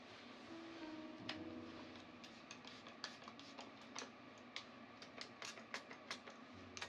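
Quiet handling noise: irregular sharp ticks and clicks, coming more often from about two seconds in.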